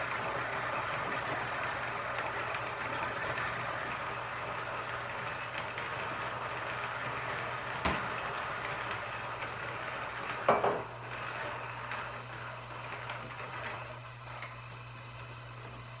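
Kitchen handling sounds: a sharp click about eight seconds in, a louder clinking knock a couple of seconds later, and a few small ticks, over a steady hiss that fades away and a constant low hum.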